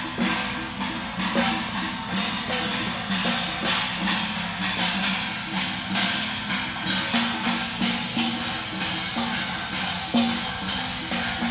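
Chinese festival procession percussion: drums beaten to a steady beat with crashing cymbals and gongs.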